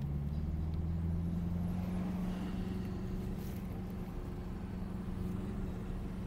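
Twin-turbocharged C8 Corvette's LT2 V8 running at low speed, heard from inside the cabin as a steady low drone.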